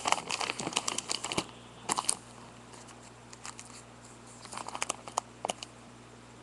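Clear plastic comic book sleeves crinkling as the comics are handled. The crackling comes in three bursts: a long one at the start, a short one about two seconds in, and another around five seconds in.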